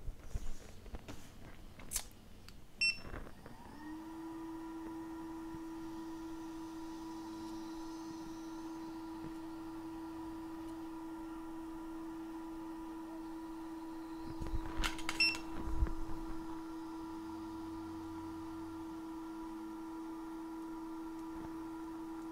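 Hot air rework station's fan spinning up about three and a half seconds in, then a steady whine as it blows hot air to soften a glue sticker on an iPhone 7 Plus logic board. Scattered clicks and handling knocks come before the whine starts and again in the middle.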